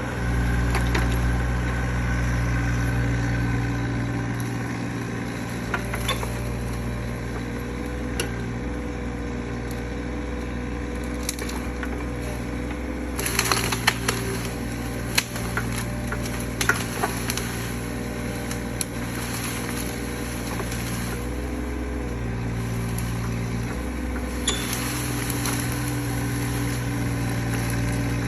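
Mini excavator engine running steadily, its pitch shifting as the hydraulics are worked, with a cluster of wood cracking and snapping about halfway through as the log grapple grabs and crushes brush and wood.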